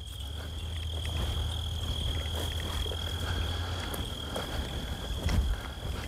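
An insect singing one steady, unbroken high note, over a low rumble.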